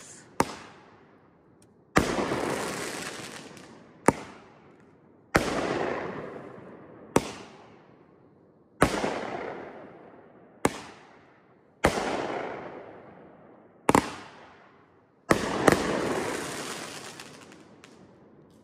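Kripton (Pyro Diablo) fireworks cake firing one shot at a time: five times a sharp launch thump, then about a second and a half later a loud aerial break. Each break trails off in a long fading crackle over several seconds.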